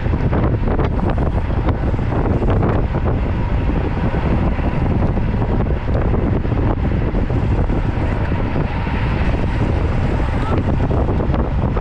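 Wind rushing over the microphone of a camera on a moving road bike: a loud, steady rush of wind noise heavy in the low end.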